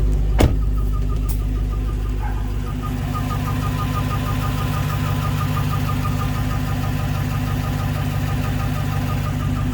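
Supercharged 6.2-litre Hemi V8 of a Dodge Charger SRT Hellcat Redeye idling, with a fast, even chirping under the hood, about five chirps a second, like a bird chirping. Its cause is unknown: the owner doubts it is the belt, and others have blamed the torque converter. A single sharp click sounds about half a second in.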